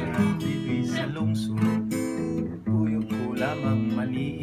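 Acoustic guitar strummed in a steady rhythm, playing chords as the instrumental passage of an old Visayan folk song.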